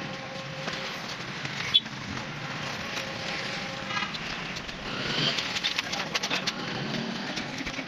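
Scattered clicks and knocks over a steady background noise, with one sharp knock about two seconds in and a run of quicker clicks a little past the middle.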